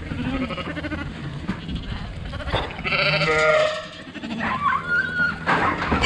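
Sheep bleating in a race while lambs are drafted off from the ewes, with a couple of longer calls a little past the middle, over a steady low rumble.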